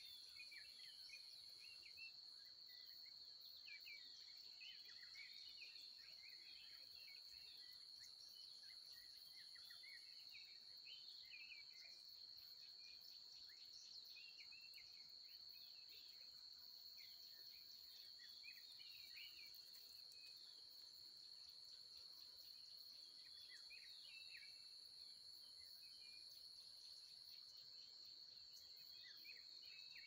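Faint natural chorus: a steady high-pitched insect trill runs throughout, with a higher, fainter trill that starts and stops. Many short bird chirps and whistles are scattered over it.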